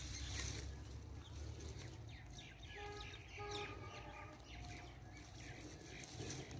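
Faint small birds chirping, with many short quick calls and a few brief held notes scattered through, over a low steady background rumble.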